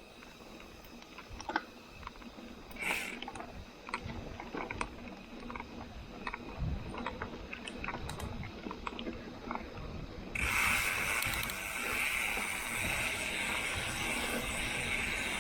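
Mountain bike riding over a trail: scattered clicks and knocks from the bike over rough ground, then about ten seconds in a sudden steady high buzz starts, the Industry Nine Hydra rear hub's freewheel buzzing as the bike coasts.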